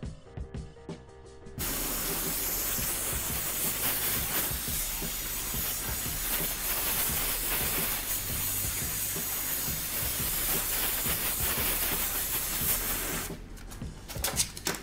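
Gas torch flame hissing steadily while it heats a metal part clamped in a vise to red heat for a shrink fit. The hiss starts abruptly, stops shortly before the end, and is followed by a few sharp knocks.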